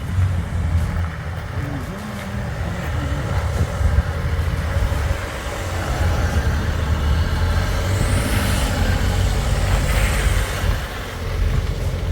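Off-road vehicle engines running with a steady low rumble, briefly getting louder and brighter about two-thirds of the way through.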